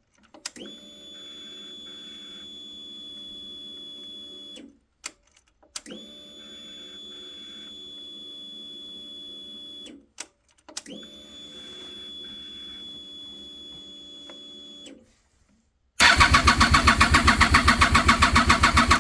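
The fuel pump of a 2007 Triumph Daytona 675 primes three times, each a steady hum of about four seconds with a click between runs. The starter then cranks the three-cylinder engine for about three seconds in loud, even pulses, and it does not start. The owner suspects the pump is not building enough fuel pressure.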